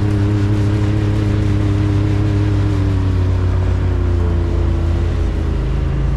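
Can-Am Maverick X3 side-by-side's turbocharged three-cylinder engine running steadily under way. Its pitch eases down a little after about three seconds.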